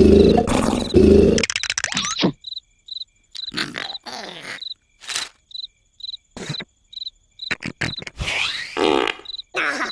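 Cartoon night-time cricket chirping, a small chirp about twice a second, after a loud, low vocal noise from the larva characters in the first second and a half. Short character grunts and rustles break in between the chirps.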